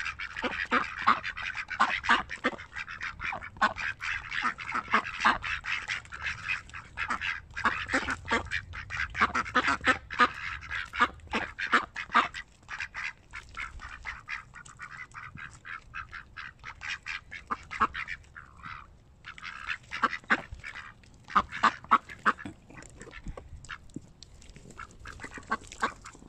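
A flock of mallards and white domestic ducks quacking, many short calls close together, busiest in the first half and thinning out later, as they crowd in to be fed.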